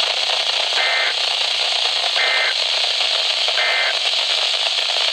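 Emergency Alert System end-of-message signal on a NOAA Weather Radio broadcast: three short two-tone digital data bursts about a second and a half apart, over a steady hiss of radio static. These three bursts mark the end of the alert message.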